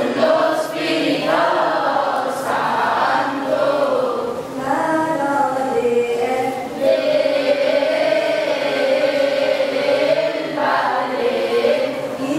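A children's choir of boys and girls singing a Coptic church hymn together, with a short break between phrases about four seconds in and again near ten seconds.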